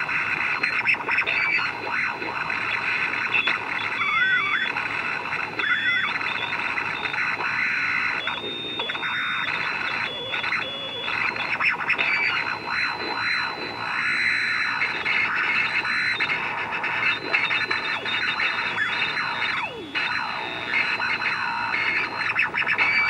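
AM radio receiver picking up radio-frequency interference from a MOSFET and 555-timer pulse circuit: a harsh, hissing buzz with a thin high whine that steps between two pitches and wavering, looping whistles. The noise shifts as the circuit's charge-dump capacitor fires through a neon bulb and the underdriven 555 timer flips between operating modes.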